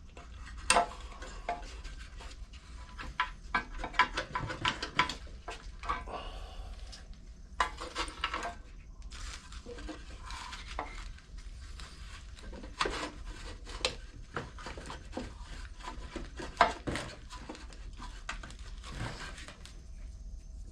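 Irregular metallic clinks and taps of tools and small metal parts being handled while a new carburetor is fitted to a Briggs & Stratton lawn mower engine.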